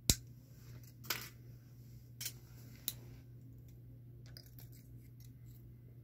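Jewelry pliers snipping and clicking on fine wire-wrapping wire: four sharp snips in the first three seconds, the first the loudest, then a few faint ticks. A low steady hum runs underneath.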